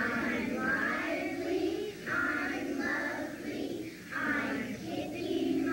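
A choir of young schoolchildren singing a song together, in phrases with short breaths between them, heard through a worn VHS recording.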